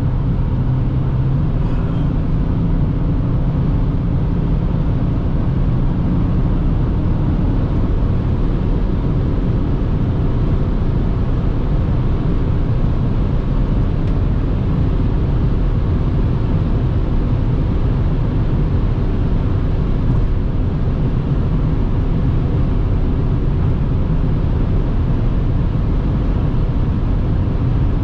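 In-cabin sound of a BMW X5 (E70) with its 3.0-litre straight-six diesel cruising at about 200–220 km/h: a steady, even drone of engine, tyres and wind that holds unchanged.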